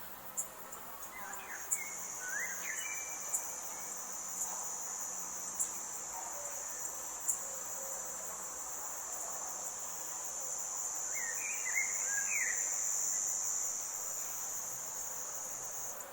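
Insects droning steadily at a high pitch, starting about a second and a half in. A bird gives short clusters of chirps twice, and faint sharp ticks come now and then.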